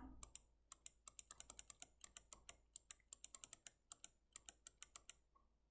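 Computer mouse button clicked repeatedly in a quick, faint run, about three clicks a second, stopping about five seconds in. Each click steps a scoring app's game clock down by one second.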